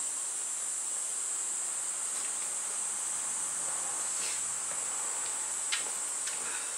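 Steady high-pitched chirring of insects, unbroken throughout, with a few faint clicks in the second half.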